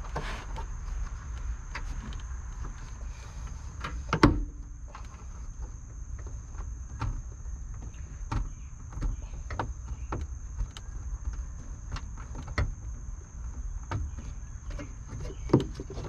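Plastic interior trim panel behind the rear seat of a Mazda RX8 being pried up and worked loose by hand: scattered clicks and knocks of the plastic and its clips, with a louder knock about four seconds in and another near the end.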